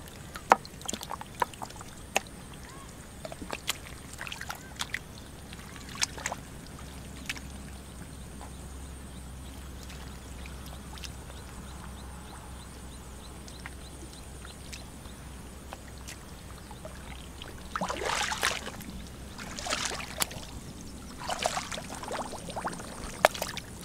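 Hands working through wet mud and shallow muddy water to catch a fish: scattered small wet squelches and splashes. About 18 seconds in come louder bursts of splashing, with two more a second or two apart.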